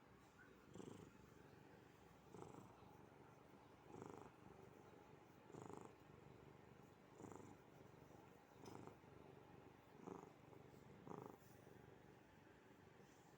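Maine Coon cat purring quietly and continuously, the purr swelling with each breath about every second and a half.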